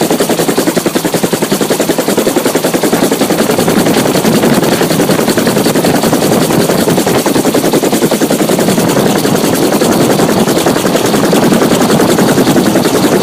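Helicopter running, its main rotor blades making a rapid, steady chop many times a second.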